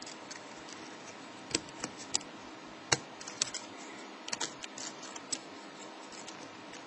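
Lock pick and tension wrench working the pins of a pin-tumbler lock: scattered, irregular sharp metal clicks, the loudest about three seconds in, over a steady faint hum.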